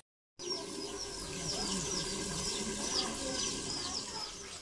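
Domestic chickens: high, falling cheeps repeating about three times a second over low clucking. They start after a brief silent gap at the start.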